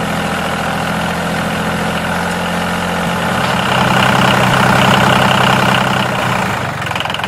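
A motor running steadily with a low, even hum. The pitch shifts slightly about three seconds in, and the sound is louder from about four seconds.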